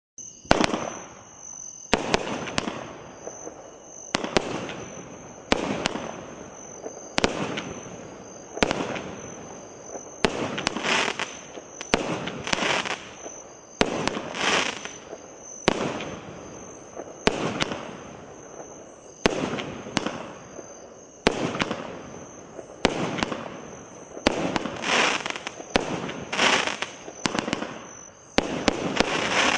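Megabanger 'Brain Sneeze' 200-gram aerial repeater cake firing shot after shot, about one every second to second and a half. Each shot is a sharp bang trailing off into a crackling tail, and some tails are longer and denser. A dense flurry near the end closes the cake.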